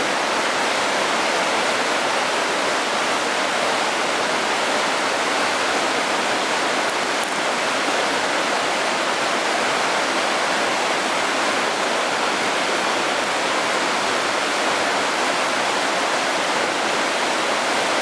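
Whitewater of a river rapid rushing steadily, an even, unbroken water noise.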